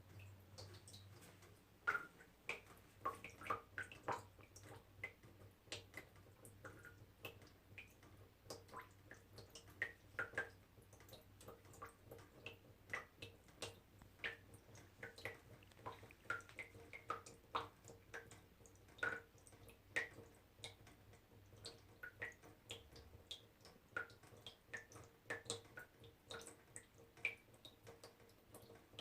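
Small water droplets dripping into water, each drop a short pitched plink, several a second at an irregular pace.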